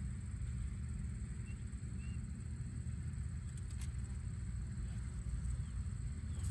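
Outdoor ambience: a steady low rumble, with two faint short high chirps about one and a half and two seconds in.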